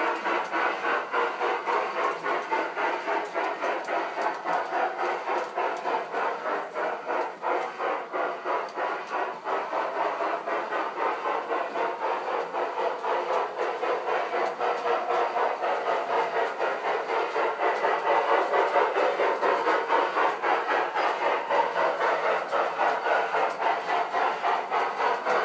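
LGB Sumpter Valley 2-6-6-2 G-scale model steam locomotive running under power with its sound system on: a steady, quick steam chuffing, growing a little louder in the last third.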